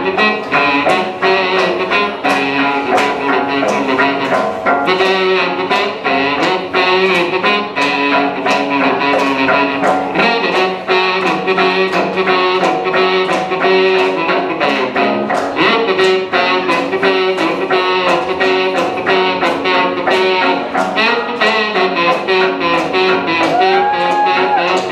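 Instrumental music: a stringed instrument played fast and rhythmically with a steady, driving beat, in an instrumental break of a live song.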